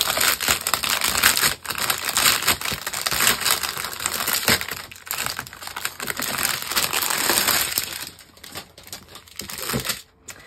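Clear plastic wrapping crinkling and crackling as a bundle of diamond painting drill bags is handled and unwrapped; the crinkling thins out and stops near the end.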